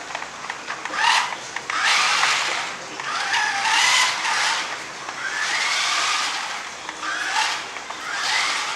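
A homemade lawn-mowing and watering robot running, making a rubbing, squealing noise that swells and fades about once a second.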